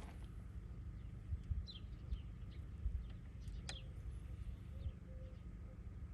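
Small birds chirping, short downward calls every second or so, over a low rumble of light wind on the microphone, with one faint click a little past halfway.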